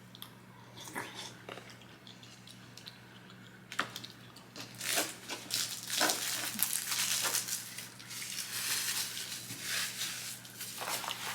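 Paper fast-food wrapper or bag being handled, crinkling and rustling with small crackles. It starts faintly and grows dense from about four seconds in, easing briefly before picking up again near the end.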